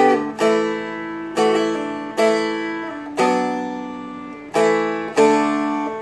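Seagull Merlin M4 strummed about six times, each chord ringing out and fading before the next.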